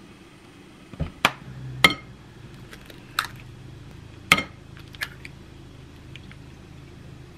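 Eggs knocked against the rim of a glass mixing bowl and cracked in: about six sharp taps and clinks, with a low steady hum underneath.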